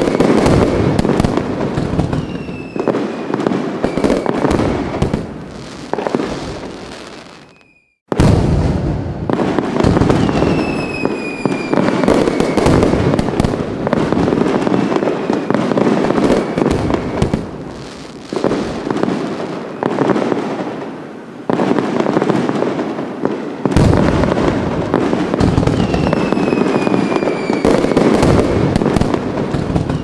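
Fireworks display: a dense, continuous barrage of bangs and crackling, with several whistles that fall in pitch. About eight seconds in the sound fades almost to nothing, then comes back at once.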